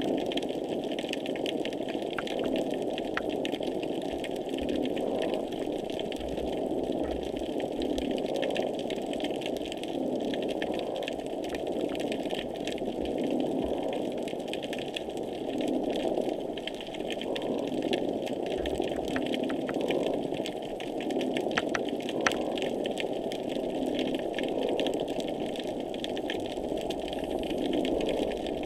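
Underwater noise picked up by a hydrophone near a pier: a dense, steady rushing drone that swells and fades over and over, with scattered crackling clicks above it. These are the repetitive noises just below the surface, here heard unusually intense.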